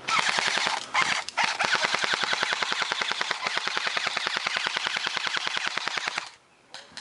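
Airsoft gun firing on full auto: a long, rapid, even string of shots with two brief breaks about a second in, stopping about six seconds in.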